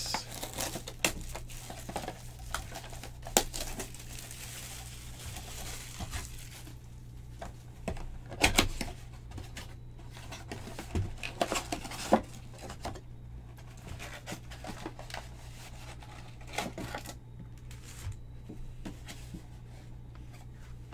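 Plastic shrink-wrap being torn and crinkled off a cardboard trading-card box, followed by the box flaps being opened and packs handled, with scattered sharp clicks and knocks. The crinkling is densest over the first few seconds.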